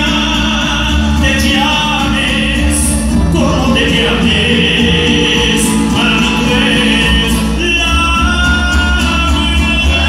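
Mariachi band playing live: trumpets carrying long held notes over strummed guitars and bass, with singing.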